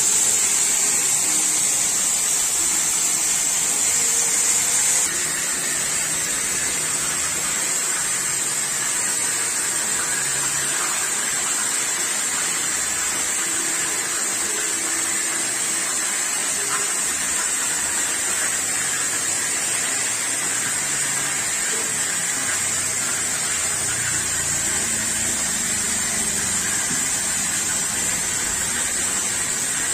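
Oxy-fuel cutting torch hissing steadily as it cuts steel plate. The hiss is high and even, and drops slightly in level about five seconds in.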